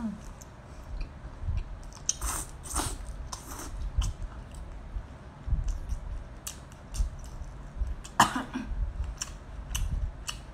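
Close-miked eating sounds: chewing and biting on skewered, sauced shellfish, with scattered small clicks and handling noises. A louder short throat sound, like a cough, comes a little after eight seconds in.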